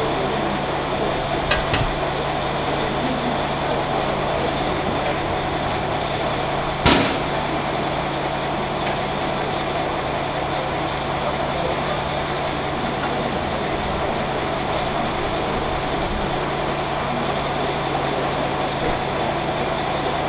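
Narrow-gauge steam tank locomotive standing still with a steady hum and hiss, and a single sharp clank about seven seconds in.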